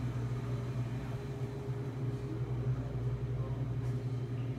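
Steady low mechanical hum with a faint higher tone above it, unchanging throughout: the background hum of the room's machinery.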